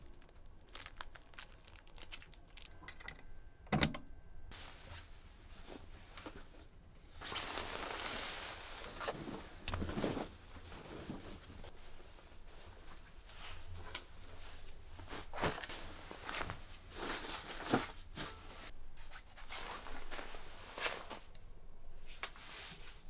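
Bed linen rustling as a sheet and a quilted comforter are spread out and smoothed over a bunk, in a long run of swelling swishes. Before that, a plastic bag crinkles with light clicks, and there is a single knock about four seconds in, over a faint low hum.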